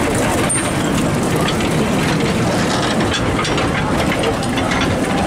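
Narrow-gauge railway passenger coaches rolling slowly past close by, their wheels clicking and rattling steadily over the rails.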